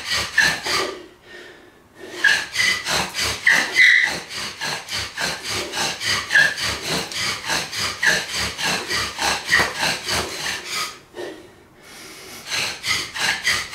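Bow drill being worked: the wooden spindle grinding in the hearth board under rapid, rhythmic back-and-forth strokes of the bow, spinning in a fidget spinner used as the handle, to build up an ember by friction. The strokes stop briefly about a second in and again near the end, then start again.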